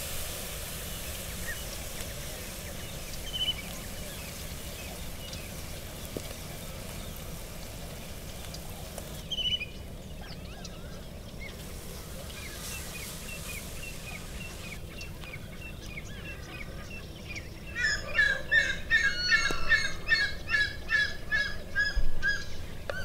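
Birds calling: a few scattered chirps, then, about five seconds before the end, a loud rapid run of repeated calls, several a second. A steady outdoor background hiss lies underneath throughout.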